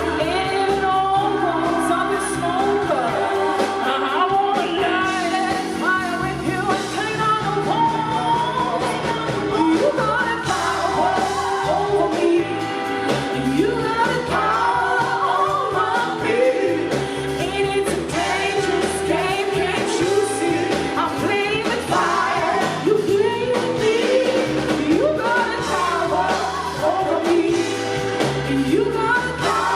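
Live blues-rock band playing loudly, with a lead part sliding and bending in pitch over the bass and drums.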